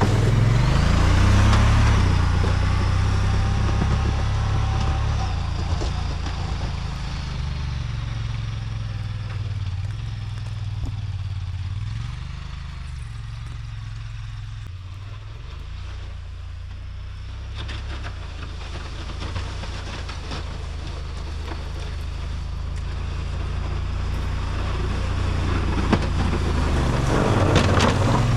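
Engine of a snowplow vehicle running steadily under load while pushing wet, heavy snow, fading in the middle and growing louder again near the end.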